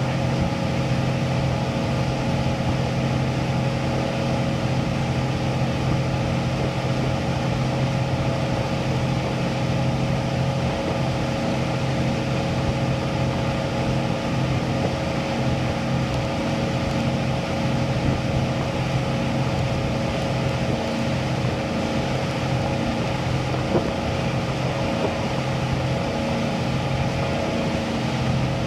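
Motorboat engine running steadily at towing speed, a constant drone over a steady rushing noise.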